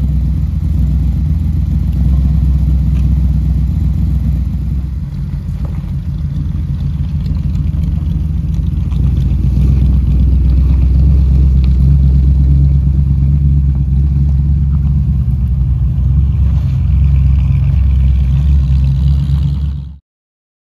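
V8 engines of a 1970 Dodge Challenger T/A 340 Six Pak and a 1972 Plymouth 'Cuda running with a deep, steady rumble. The sound cuts off abruptly near the end.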